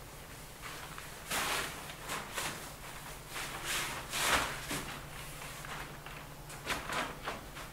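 A series of soft scuffing swishes, the loudest about four seconds in, as paint is rubbed and brushed onto a wall and feet shuffle on the floor, over a low steady hum.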